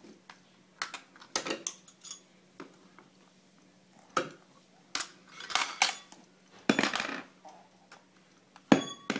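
Small metal objects clinking and knocking against each other and a hard plastic toy as a baby handles them: irregular clinks and clatters, the loudest near the end with a short metallic ring.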